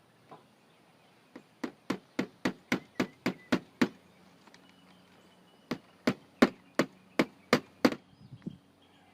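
A hammer tapping small finish nails, tacking a repair piece in place: two quick runs of evenly spaced strikes, about four a second, with a short pause between.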